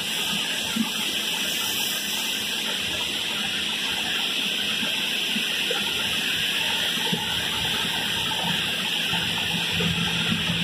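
Commuter-rail passenger coaches rolling past along the platform: a steady rushing noise of wheels on rail, with a low hum coming in near the end.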